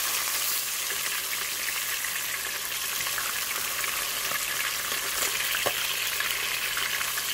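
Crappie frying in hot olive oil in a pan: a steady sizzle with scattered small pops, one sharper pop about two-thirds of the way through.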